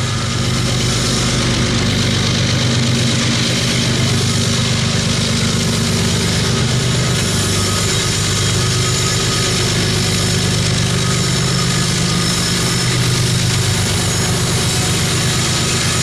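Diesel freight locomotive running, a loud steady engine drone with a dense hiss of noise above it.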